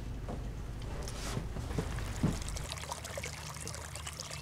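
Water trickling and gurgling into a crumpled plastic bottle held under the surface of a shallow stream to fill it, starting a little past halfway in. Before that there is only low ambience with a few soft knocks.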